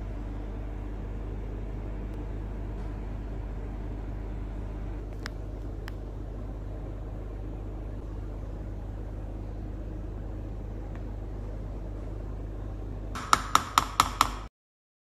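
Steady low electrical hum, with a couple of light clicks midway. Near the end comes a fast run of about seven sharp, ringing taps on something hard, then the sound cuts off abruptly.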